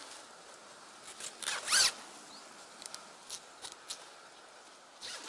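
A zip on fabric fishing gear being pulled in one short, quick stroke about one and a half seconds in, followed by a few faint clicks and rustles of handling.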